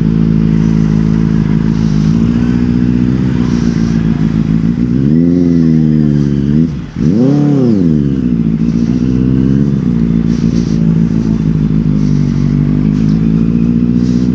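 Benelli TNT 600i's inline-four engine running at low speed with a steady note, blipped twice: the revs rise and fall about five seconds in, drop off briefly, then rise and fall again about seven seconds in.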